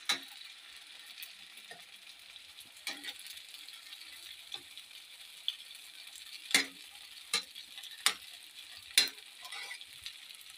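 Egg-and-flour batter sizzling in oil in a non-stick frying pan, with a spatula scraping and knocking against the pan about seven times, the loudest strokes in the second half.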